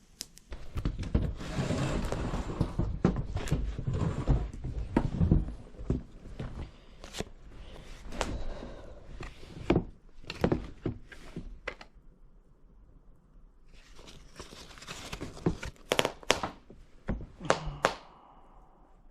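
Irregular knocks, thunks and clatter with rustling, as objects are handled and set down, in two busy stretches with a short lull between.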